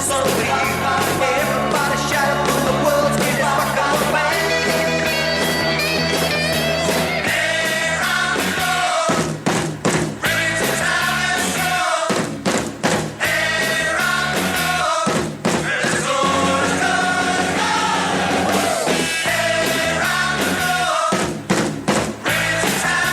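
A 1970s rock song from the show's record playlist: a sung vocal over a full band, with the band briefly stopping several times in the second half.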